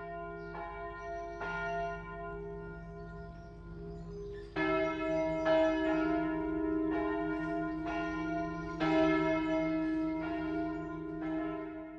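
Church bells ringing, several bells struck one after another, each stroke ringing on under the next; the peal grows louder about four and a half seconds in.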